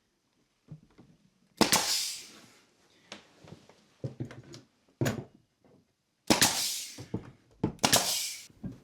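A nail gun firing into wood trim: about four sharp shots at uneven intervals, about one and a half, five, six and a quarter, and almost eight seconds in, each followed by a short hiss.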